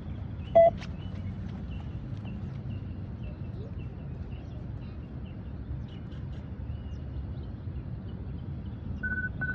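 Beep-test (multi-stage fitness test) signals from a speaker over a steady low background rumble: a single short, loud beep about half a second in, then a quick run of identical beeps near the end, the test's signal that level 2 is starting.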